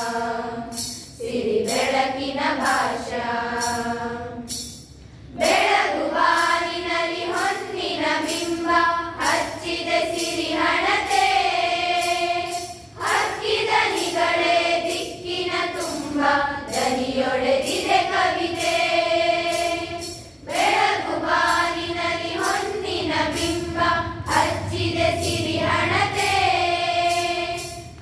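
A group of young women singing a Kannada patriotic song together in unison, phrase by phrase, with short breaks between phrases.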